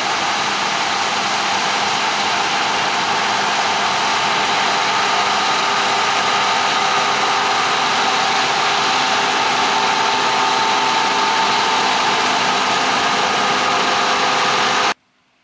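Diesel harvest machinery running steadily, a dense mechanical noise with a steady whine over it, cutting off abruptly near the end.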